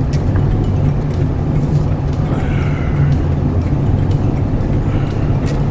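Steady low rumble of a four-wheel-drive vehicle's engine and road noise, heard from inside the cabin while driving on snowy streets.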